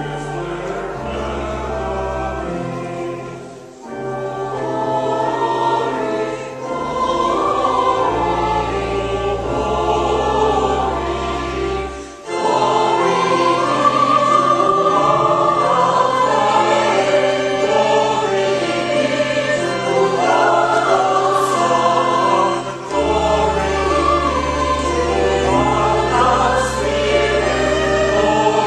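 Choir singing a slow Marian hymn over long-held low bass notes, with brief breaks between phrases about four and twelve seconds in.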